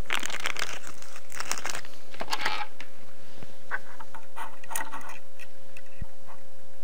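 Hands handling small parts and fitting the laser module onto a laser engraver's gantry carriage. There are about two and a half seconds of rustling and clicking, then scattered light ticks and taps, over a faint steady hum.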